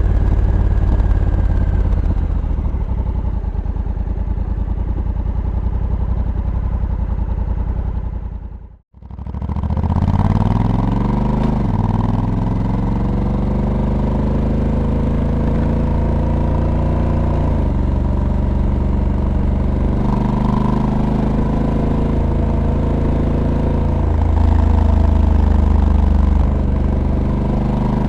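Honda Africa Twin's 1084 cc parallel-twin engine heard onboard. The sound fades out and back in about a third of the way through, then the bike accelerates through several automatic DCT upshifts, the engine note climbing and dropping at each shift.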